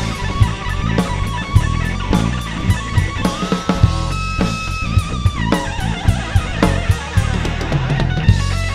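Live rock band playing an instrumental passage: electric guitar over a full drum kit and bass, with a held guitar note that bends and slides down about halfway through.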